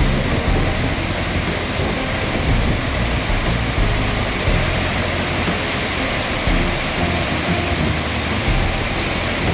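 Large multi-tiered waterfall crashing down rock ledges into its plunge pool: a loud, steady rush of water, with faint background music underneath.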